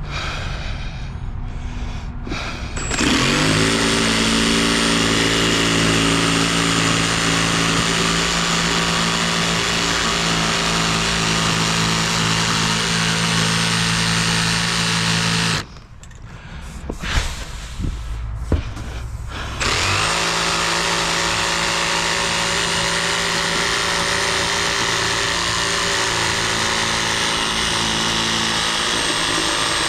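A power tool spins up and runs steadily at a constant pitch with a high whine for about twelve seconds, stops, and after a few knocks starts again and runs on.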